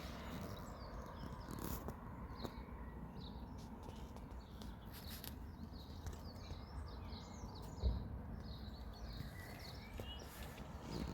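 Small garden birds chirping and calling on and off over a steady low background noise, with a single thump about eight seconds in.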